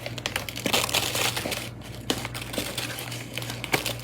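Brown sugar being scooped and packed, with a dense crackling crunch and scattered clicks throughout.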